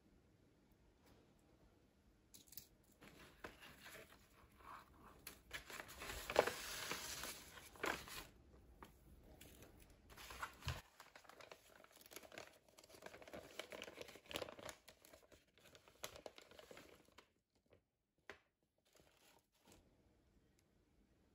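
Rustling and crinkling of a fabric-wrapped parcel being unwrapped by hand: twine pulled off, and cloth and tissue paper unfolded and handled. The rustling starts a couple of seconds in, is loudest a few seconds later, and fades to a few soft taps near the end.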